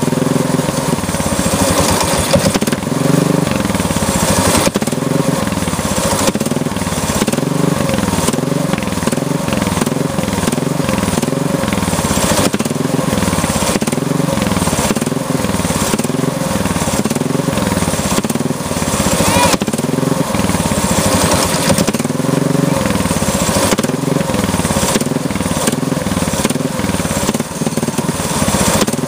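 Go-kart's small engine running on choke, its revs hunting up and down about once a second as the governor arm keeps kicking in. It will only run on choke and stalls when the choke is taken off; the owner suspects a carburetor issue.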